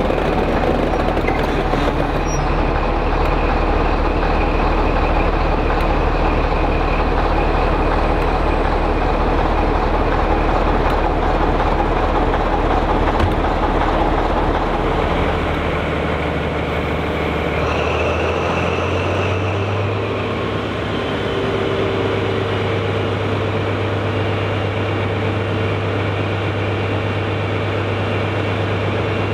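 Heavy diesel locomotive engines idling at a standstill, a Class 25 and the prototype HST power car 41001, running as a steady low drone. About halfway the deepest note drops away and a steady, slightly higher hum takes over.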